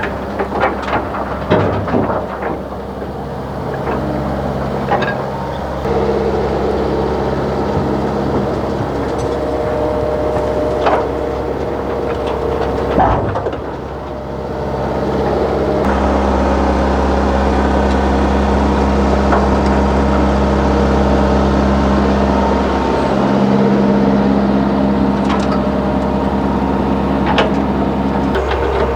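Heavy diesel machinery working: an excavator's engine runs steadily, its note shifting with load a few times, with scattered sharp knocks and clanks.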